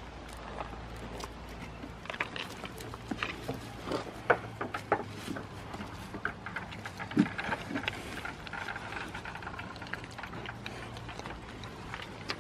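Goats crowding at a wooden fence and eating blueberries from a hand: many irregular close clicks, crackles and rustles, with a few louder knocks.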